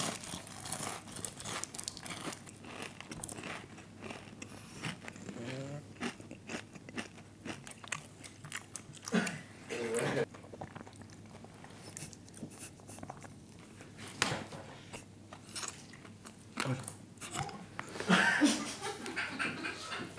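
People biting into and chewing crispy extra-spicy fried chicken, with repeated crunching of the coating, and a few short vocal sounds in the middle and near the end.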